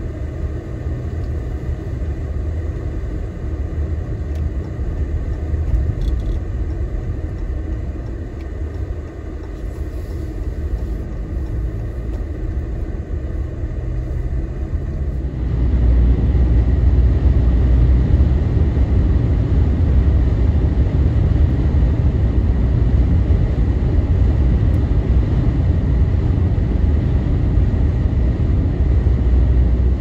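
Vehicle driving on a snow-covered highway in a blizzard: a steady low rumble of road and wind noise. It gets louder and heavier about halfway through.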